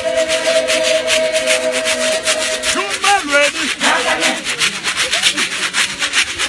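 Fast, even rhythm of raspy hand-percussion strokes, several a second, from a singing and dancing church choir. A held sung note ends about two seconds in, and short bursts of voices follow a second later.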